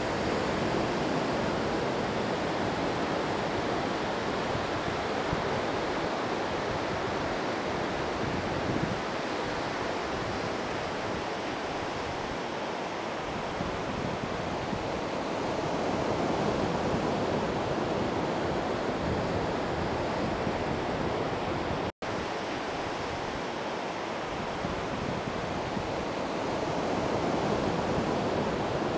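Steady wash of ocean surf with wind on the microphone, broken by a momentary dropout about three quarters of the way through.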